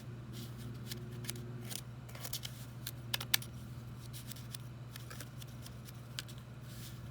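Light, irregular clicks and scrapes of a small plastic utensil stirring the kit's powdered candy 'rice' mix with water in a plastic tray, over a steady low hum.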